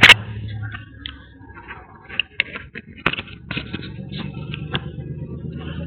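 Rubbing and knocking noise from a camera worn by a Scottish terrier: one loud knock at the start, then scattered small clicks, scrapes and rustles as the camera moves against fur and harness. A low steady hum comes in about halfway.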